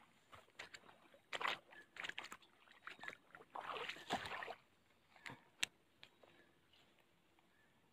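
Scattered rustles and sharp clicks of someone moving through wet grass and handling a fishing rod and reel, with a longer rustle about four seconds in.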